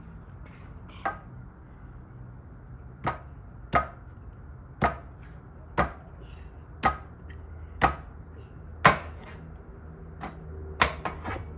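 Cleaver chopping into a pig's head on a steel tray: about a dozen sharp blows, roughly one a second, with three quick blows in a row near the end.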